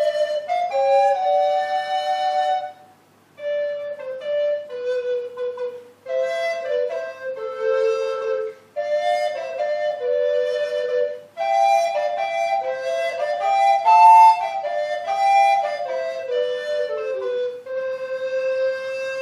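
Two tenor recorders playing a duet in two moving parts. The phrases pause briefly for breath about three seconds in, and the music settles on one long held note near the end.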